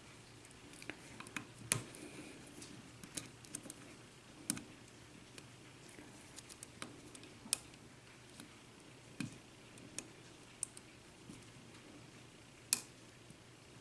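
Faint, irregular clicks and ticks of a steel lock pick working the pin stack of a 5-pin Corbin Euro cylinder under tension, with a few sharper clicks as pins are lifted and set.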